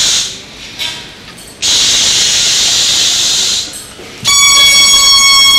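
Air rushing through a rubber balloon's neck in two long hisses, then a steady high squeal from about four seconds in as air is let out through the stretched neck.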